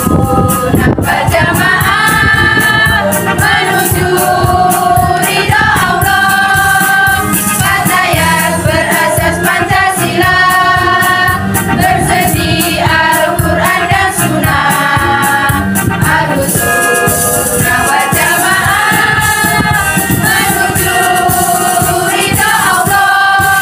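Women's choir singing a slow melody together, the notes held a second or two each before moving on.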